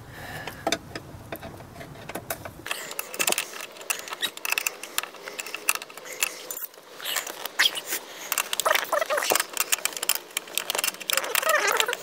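Irregular clicks and metallic clinks and rattles of a seatbelt retractor and its bolt being worked loose by hand from behind a car's interior trim panel.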